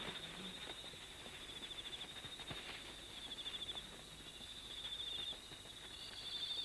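Night insects trilling: a steady high trill that pulses rapidly, with a second, higher trill joining near the end and faint scattered clicks beneath.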